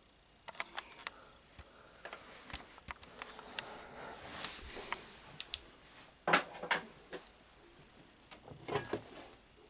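Handling sounds of a plastic box fan being moved and turned over: scattered clicks and rustling, with a few louder knocks about six seconds in and again near the end.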